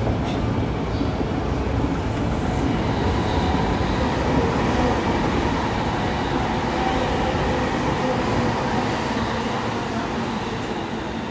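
Rumble of a train running in the station, swelling a few seconds in and easing off toward the end, over the general noise of a busy station.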